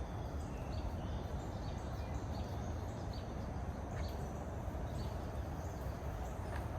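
Outdoor ambience: a steady low rumble with scattered short, high bird chirps throughout.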